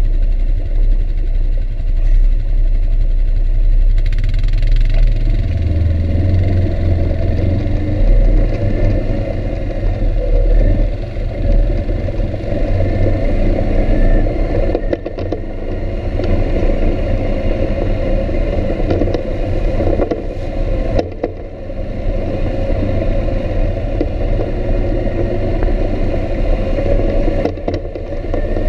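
ATV engine running as the quad rides along a rough dirt trail, with a strong low rumble throughout and a few short knocks from the bumpy ride.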